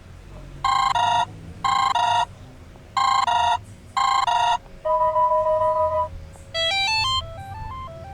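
Stock Android 5.1 Lollipop phone ringtones, electronic and bell-like. A two-note figure sounds four times about a second apart, then a held chord of two tones, then a quick rising run of short notes near the end.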